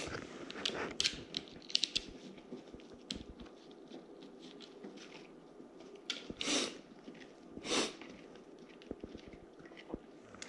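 Ainu dog gnawing a hard white bone-shaped chew treat: a run of sharp clicks and crunches of teeth on the chew, with two louder, longer bursts about six and a half and eight seconds in.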